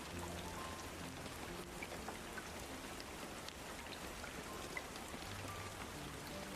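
Steady rain with scattered drop ticks, over a few soft, sustained low music tones.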